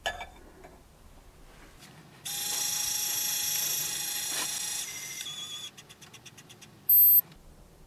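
Lyman Gen6 electronic powder dispenser: a click as the pan is set on its scale, then the dispensing motor whirring steadily while it throws the bulk of the charge. It drops to a quieter tone and then a trickle of quick pulses, about eight a second, and ends in a short loud beep that signals the 30-grain charge is reached.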